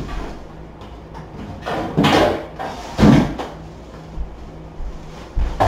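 Two short bumps with rustling, about a second apart, as household items and a plastic bag are picked up and handled in a nearby room.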